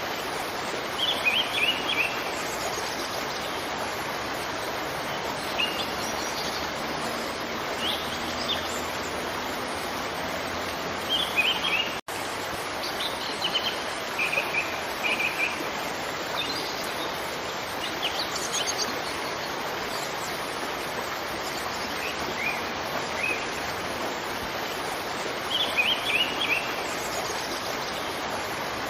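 Steady rush of a waterfall with small birds chirping over it in short runs of quick, high notes every few seconds. The sound cuts out for an instant about twelve seconds in.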